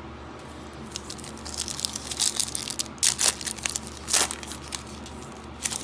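Baseball card pack's foil wrapper being torn open and crinkled: a run of crackling rustles with a few sharper tears about three seconds in, about four seconds in and near the end.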